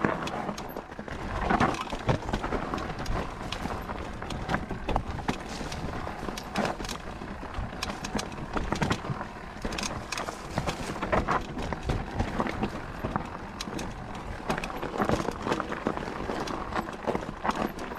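Mountain bike ridden over a rough dirt trail: tyre noise on dirt and stones, with the bike rattling and knocking irregularly throughout.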